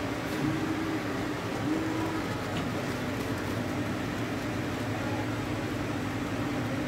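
Kaşar cheese dicing and grating machine running: a steady motor hum with a mechanical whir.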